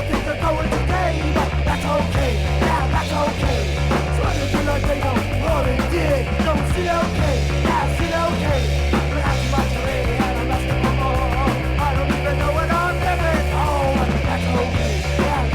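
A 1979 punk rock recording playing steadily and loud: a band with electric guitar, bass and drums.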